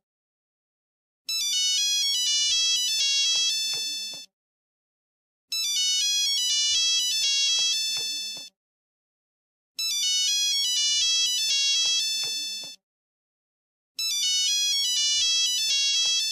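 Old Nokia mobile phone ringtone: a short, bright electronic melody of about three seconds, played over and over with just over a second of silence between each play, four times in all.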